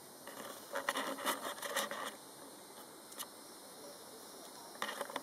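Scratchy rustling in short, crackly bursts over a steady hiss: a dense cluster about a second in, a single tick a couple of seconds later, and more rustling near the end.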